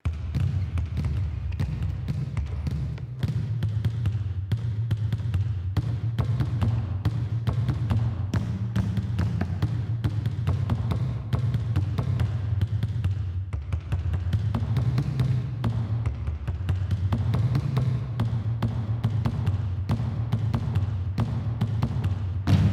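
Several basketballs dribbled at once on a hardwood gym floor: a dense, continuous run of overlapping bounces over a steady low rumble.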